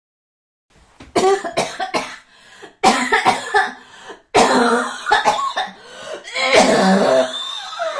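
A person's coughing fit: a run of repeated, irregular coughs, starting about a second in and going on to the end.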